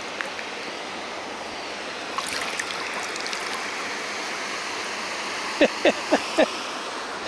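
Steady rush of flowing river water, with faint splashing about two to three and a half seconds in. Near the end, four short, loud sounds falling in pitch follow each other quickly.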